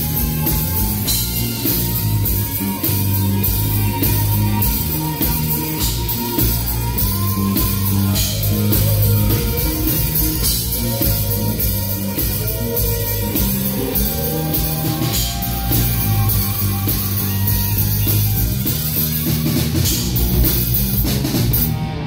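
Live rock band playing: drum kit, bass, electric guitars and keyboard, with a steady beat and a lead line that slides and bends in pitch.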